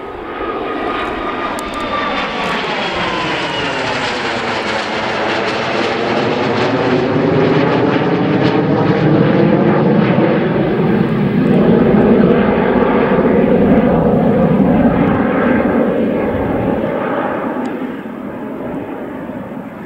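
A pair of BAC Strikemaster jets flying past, their Rolls-Royce Viper turbojets whining and roaring. The whine falls in pitch over the first few seconds as they go by. The jet noise then builds to its loudest around the middle and eases off near the end.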